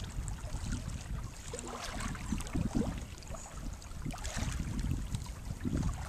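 Wind rumbling on the microphone over shallow bay water, with light irregular splashing and lapping of the water.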